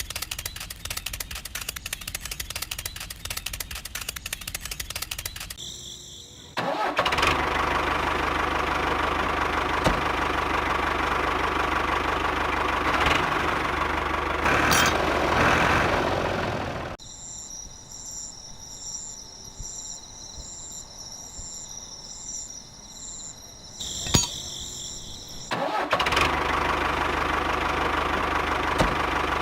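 A small engine running in several abruptly cut segments: a fast, even ticking at first, then a louder steady running sound, a quieter stretch with a high steady whine, and the louder running again near the end.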